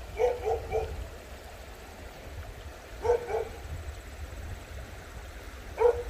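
A dog barking at a stranger in short, sharp runs. There are about four quick barks at the start, a couple more around three seconds in, and one more near the end, over a low steady rumble.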